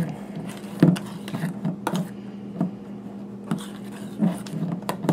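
A spatula stirring a thick chocolate cream-cheese mixture in a stainless steel mixing bowl, scraping and knocking against the bowl's sides in uneven strokes about once or twice a second.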